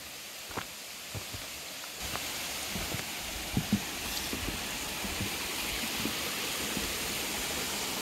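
Mountain stream rushing, growing louder about two seconds in and then running steadily, with a few soft thumps.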